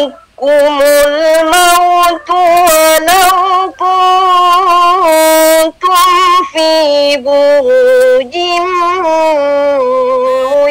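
A young woman's solo voice reciting the Qur'an in melodic tartil style: chanted phrases with held notes and small pitch ornaments, stepping between pitches, with brief breaths between phrases.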